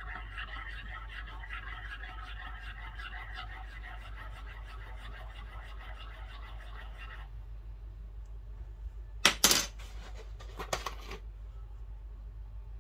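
Metal teaspoon stirring fast inside a ceramic cup of coffee, a rapid scraping rattle that stops about seven seconds in. About two seconds later come loud clinks of metal on ceramic, then a smaller cluster of clinks a second after.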